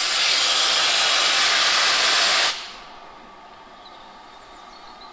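Steam locomotive letting off steam: a loud hiss that holds for about two and a half seconds, then cuts off suddenly.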